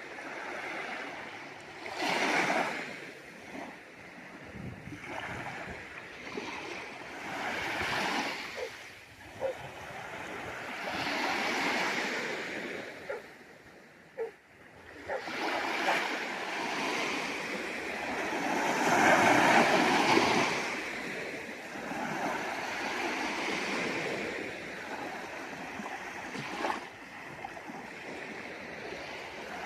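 Sea waves washing onto the shore, each surge swelling and falling away every few seconds, the biggest about two-thirds of the way through, with a few small splashes between.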